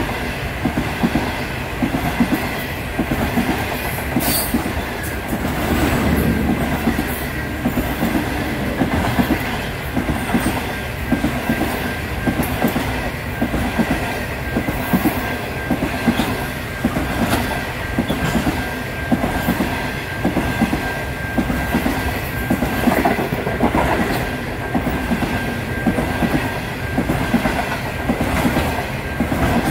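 Passenger train of stainless-steel fluted carriages passing close by at speed: a steady rush of wheels on rail with a rhythmic clickety-clack of the wheels. A thin, steady, high whine joins in about ten seconds in.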